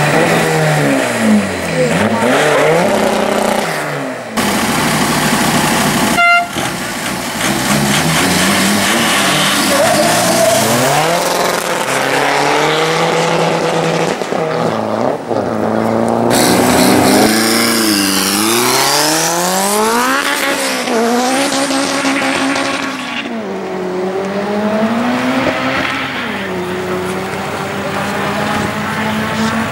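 Tuned cars launching and accelerating hard down a drag strip, engine pitch climbing and dropping back again and again as they rev and shift gears. Their tyres spin and smoke at the launch.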